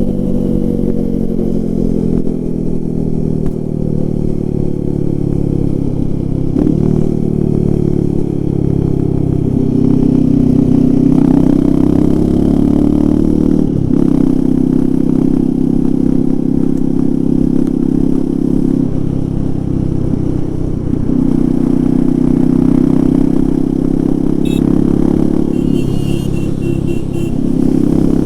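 Royal Enfield Himalayan 450's single-cylinder engine ridden hard. Its pitch falls over the first few seconds as the bike slows, then jumps and drops several times as gears are changed and the throttle is opened and closed.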